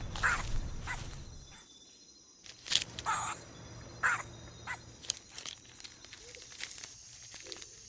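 Faint outdoor nature ambience with a few short, scattered bird calls. There is a brief near-silent gap about two seconds in.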